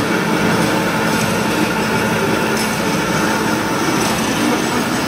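Cold-rolling ribbed wire drawing machine running, a steady loud mechanical noise with a few faint tones held underneath.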